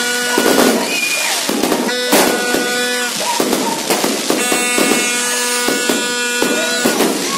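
Fireworks going off in rapid succession, a dense run of pops, bangs and crackles. Under them runs a steady pitched tone that drops out briefly twice.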